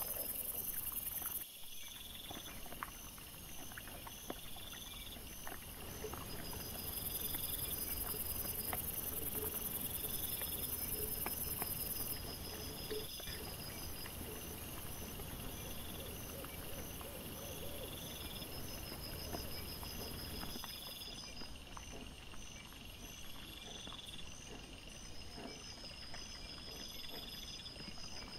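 Night insects, crickets or bush crickets, chirping in an even repeating rhythm about once a second, picked up by a trail camera's microphone together with its steady high hiss.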